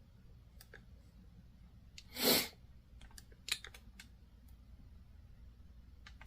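Scattered light clicks and taps of a plastic action figure being handled and turned, with one short, louder rush of noise about two seconds in.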